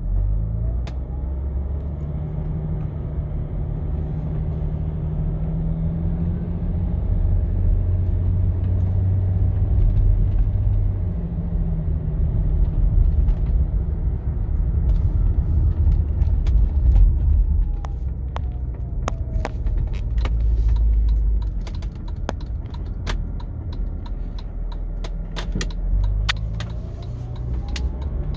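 Audi A6 C5 Allroad's 2.5 TDI V6 turbo-diesel heard from inside the cabin at low revs during gentle driving, a low drone with road rumble. Its pitch rises and drops several times as speed changes and the tiptronic automatic shifts. Sharp clicks and knocks are scattered through the second half.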